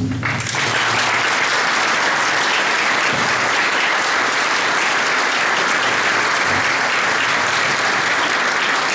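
Audience applauding: dense, steady clapping that breaks out just after the start and holds at an even level.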